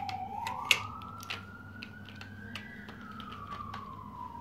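A siren wailing, its pitch sliding slowly up and then back down, with scattered clicks and taps of plastic toy pieces being handled.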